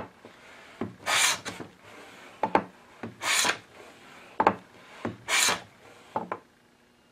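Wooden jack plane on a shooting board, shooting the end grain of a cherry board: three cutting strokes about two seconds apart, with short sharp knocks between them. The strokes stop shortly before the end.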